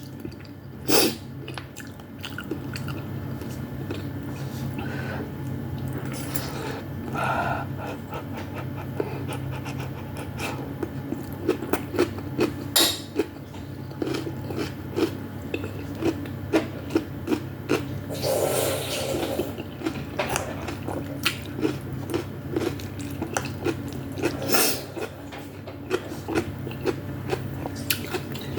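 Close-up eating sounds from a person eating vegetable soup with meatballs: chewing with many small wet clicks and smacks, and a few longer noisy bursts along the way. A steady low hum runs underneath.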